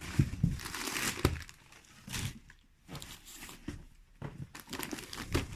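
Gift wrapping being crinkled and torn open. It comes in two spells of rustling and crackling, with a quieter pause in the middle.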